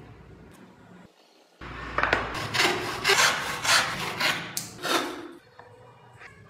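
Small piece of wood rubbed back and forth by hand against a flat surface to sand it: a run of rasping strokes, two or three a second, starting about a second and a half in and stopping near five seconds.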